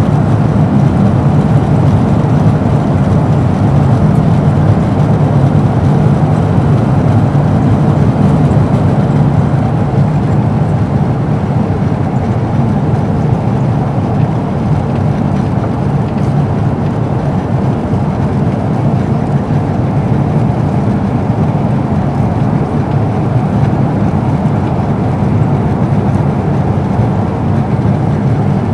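Steady cabin noise of an Airbus A330-300 climbing out after takeoff: the engines and rushing air heard from a window seat as a loud, even, low rumble that never lets up.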